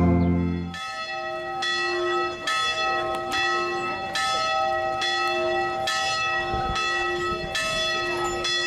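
Church bells ringing, a stroke a little under once a second, each ringing on into the next. Congregational singing with organ cuts off just under a second in.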